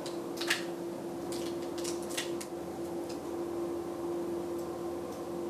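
Boiled lobster tail shell crackling and snapping in a few short clicks as it is peeled apart by hand, over a steady low hum. The clicks fall in the first half; after that only the hum remains.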